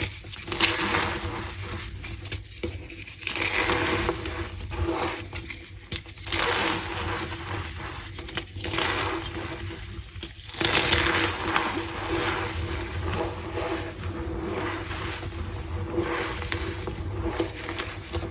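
Reformed gym chalk being crushed and crumbled by hand, giving a squeaky crunching and scraping in irregular bursts that swell and fade every second or two.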